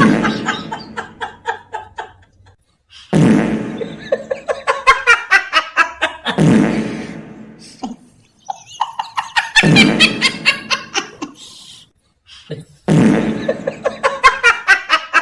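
Exaggerated, strange-sounding meme laugh sound effect: rapid pulsing cackles in bursts of two to three seconds, repeated several times with short pauses between.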